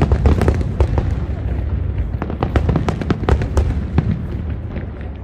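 Aerial fireworks display going off: a rapid string of sharp cracks and bangs over a continuous low rumble of booming shells, easing off slightly near the end.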